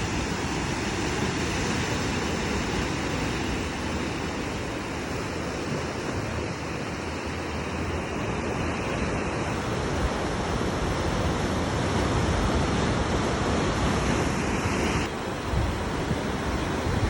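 Sea waves washing onto a beach: a steady rush of surf.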